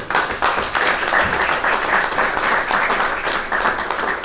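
Audience applauding: a dense patter of many hands clapping that starts suddenly and holds steady.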